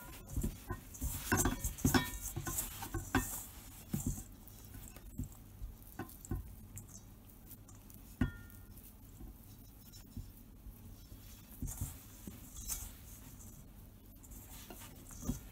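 Hands kneading crumbly butter-and-flour cookie dough in a metal mixing bowl: irregular soft crumbling and squishing, with small clicks and clinks against the bowl. It is busiest over the first few seconds, then sparser, with a single short ringing clink about eight seconds in.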